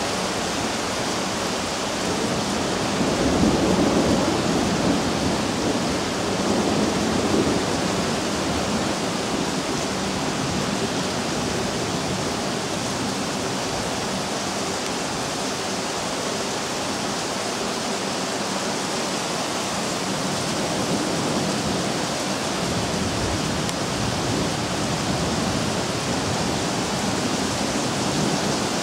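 Heavy rain pouring steadily in a thunderstorm, a constant hiss, with a low rumble swelling twice in the first several seconds.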